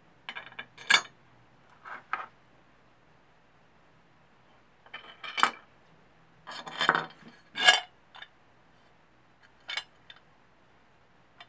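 Steel bolts clinking against each other and against a metal engine side cover as they are picked up and set into its bolt holes, in several short clusters of clinks.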